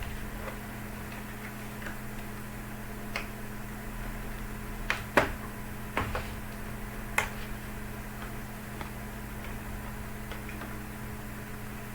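A handful of sharp, separate clicks and taps, about five, the loudest a little after five seconds in, over a steady low electrical hum.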